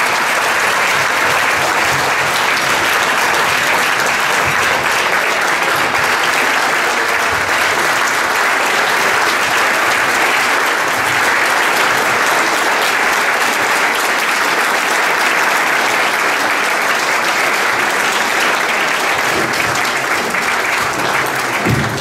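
A large audience applauding in a standing ovation, a dense, steady clapping that holds at full strength throughout.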